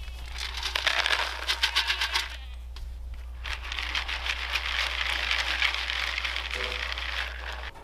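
Dry dog kibble poured from a plastic scoop into a plastic bowl: a rapid rattle of pellets hitting the bowl for about two seconds, then a longer, steadier rustling hiss from about three and a half seconds in.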